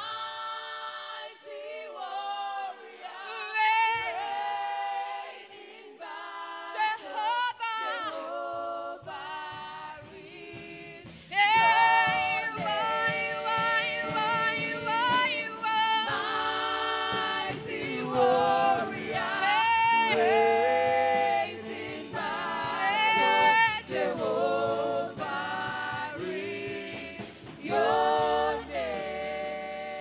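Choir singing a gospel worship song, growing louder and fuller about a third of the way in.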